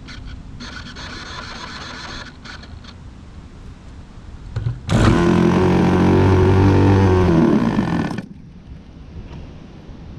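Handheld electric starter spinning a model airplane's engine, a loud, steady whirring run of about three seconds that starts about five seconds in and cuts off suddenly; the engine does not catch. A fainter whirring hiss comes and goes in the first few seconds.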